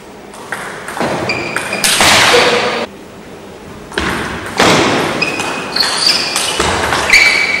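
Table tennis rally: the celluloid ball clicking off bats and table with short pings, alongside brief bursts of noise from the hall.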